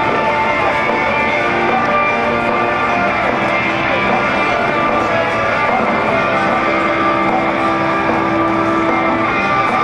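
Music with a guitar playing over outdoor loudspeakers.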